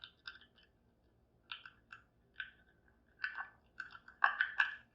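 Irregular small clicks and scrapes of a magnet being worked against a Miwa Magnetic cabinet lock, its magnetic sliders clicking inside; the clicks come closer together and louder near the end.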